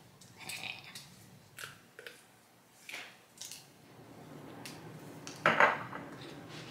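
Small glass spice jar being twisted open by hand: scattered clicks and rattles of the cap and the seeds inside, with one louder brief burst of noise about five and a half seconds in.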